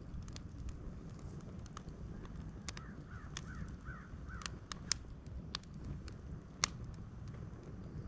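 Wood campfire burning in an open steel fire pit, snapping and popping with sharp irregular crackles over a low steady rumble, one loud pop a little past halfway. Around the middle a bird calls about five times in a quick run.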